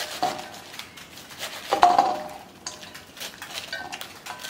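A kitchen knife cutting through raw cabbage in a string of short, crisp crunches as the pieces drop into a stainless steel bowl. About two seconds in comes the loudest sound, a sharp clink on the metal bowl that rings briefly, with smaller clinks near the end.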